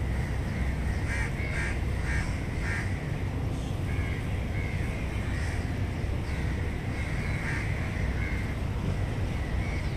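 Birds calling in short repeated calls, a run of four about a second in and more later, over a steady low rumble of city ambience.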